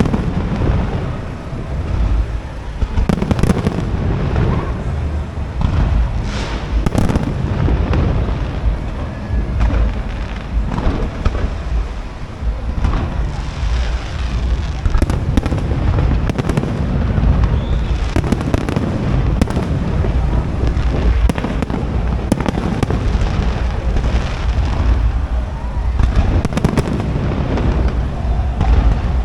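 Aerial fireworks display: shells bursting in a dense, unbroken barrage of overlapping deep booms and bangs.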